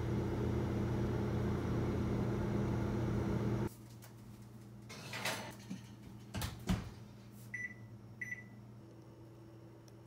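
A steady low hum that cuts off a few seconds in. Then clattering of ceramic ramekins and the oven rack as the ramekins go into the oven, and two short electronic beeps from the oven's control panel being set.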